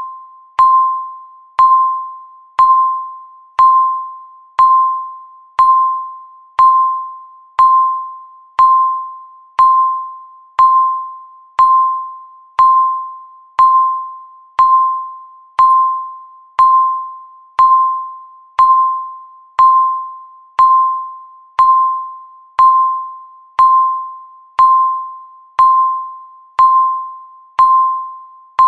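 Countdown timer beeping once a second: a single pitched tone for each second left, each beep starting sharply and fading away before the next.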